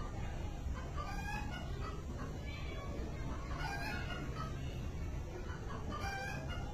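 A flock of chickens clucking, many short calls overlapping throughout, over a steady low background rumble.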